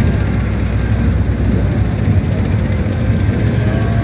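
Military armored vehicles' diesel engines running as the vehicles drive past in a column: a deep, steady rumble.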